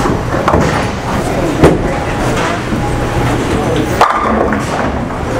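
Bowling alley sound: a steady din of background chatter and the rumble and clatter of balls and pins on the lanes, with sharp knocks about one and a half seconds in and again about four seconds in.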